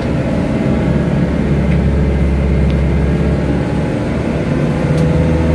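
Vehicle engine running steadily under way, heard from inside the cabin as a constant low hum with road noise.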